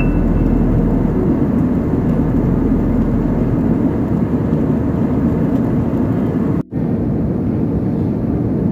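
Steady cabin noise of an Airbus A320-family jet airliner in flight: the engines and rushing air heard from a window seat. It cuts out for an instant about two-thirds of the way through, then carries on the same.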